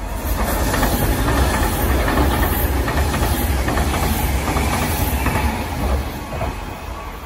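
Tobu Railway 200-series-type limited express electric train running past at speed: a steady rumble of wheels on rails with a rush of noise, easing a little near the end.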